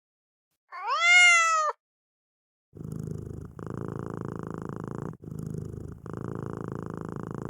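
Domestic cat meowing once, a single call of about a second that rises and then dips at the end, then purring steadily from about three seconds in, the purr broken by short gaps every second or two.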